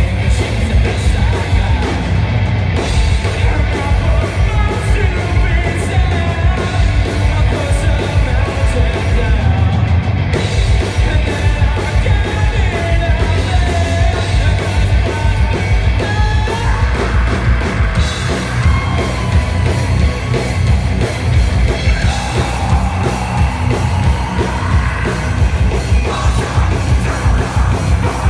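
Live rock band playing loud, with shouted vocals over the music.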